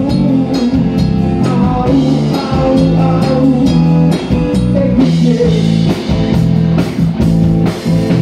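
Live rock band playing: electric guitars and drum kit with a singer, heard through the concert's sound system.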